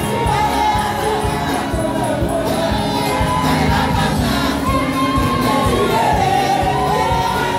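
Live gospel praise music: a group of women singing into microphones, the congregation joining in, over a band with a steady beat and jingling percussion.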